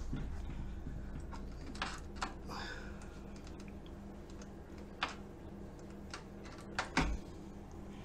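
A few light clicks and knocks as a compressor fridge is handled and switched on, over a faint steady low hum. The two sharpest clicks come about five and seven seconds in.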